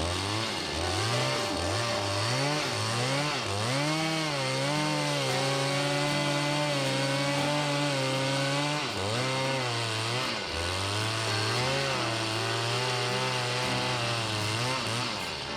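Two-stroke chainsaw with an 18-inch bar, revved in several short bursts and then held at high speed while cutting into a large tree trunk, its pitch wavering and sagging under load. The engine drops off briefly about nine seconds in, runs high again, then falls away near the end.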